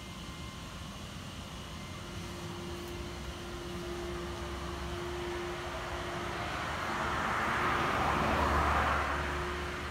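A vehicle passing: a rushing sound that builds, is loudest about eight seconds in, then fades, over a steady low hum.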